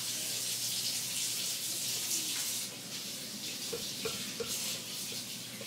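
Kitchen tap running into a sink, a steady hiss of water that eases off about two and a half seconds in.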